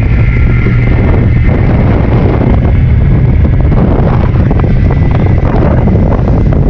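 Wind buffeting the microphone over the steady drone of an outboard motor as a small open fiberglass boat runs at speed, with water rushing along the hull.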